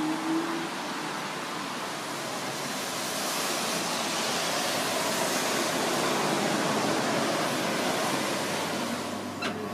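Steady rushing hiss of outdoor noise, swelling a little in the middle, with a single small click near the end.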